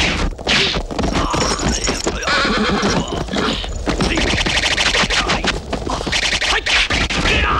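Film sound effects of a horse neighing, with rapid galloping hoofbeats.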